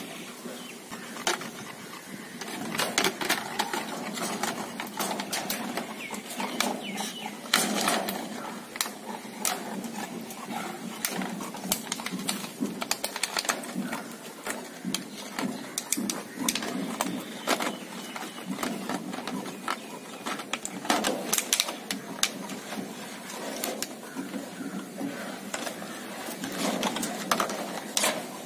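Rottweiler puppy gnawing a plastic bottle: irregular crackling and clicking of crushed plastic throughout.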